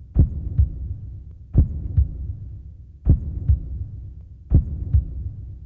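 Heartbeat sound effect: slow, heavy double thumps, four pairs about a second and a half apart, over a low rumble.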